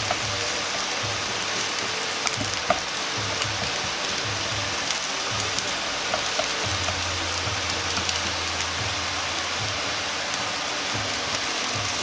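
Julienned carrot and diced ginger sizzling steadily in oil in a non-stick frying pan over low heat, with light clicks of wooden chopsticks touching the pan now and then.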